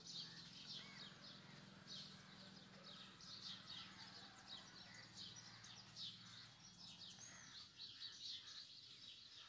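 Faint, quick chirping of small birds, repeating throughout, over a low steady hum that fades out near the end.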